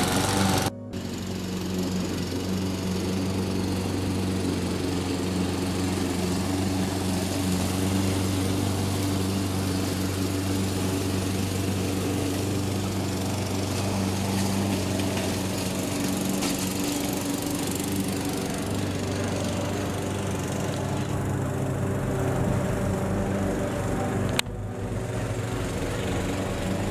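A small engine running steadily at a constant speed, of the kind heard from a lawn mower. The sound breaks off abruptly for a moment about a second in and again near the end.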